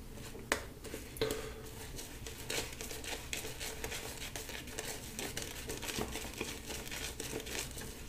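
Boar-bristle shaving brush working soap lather over the face, a soft continuous crackling swish, with a couple of sharper clicks about half a second and a second in.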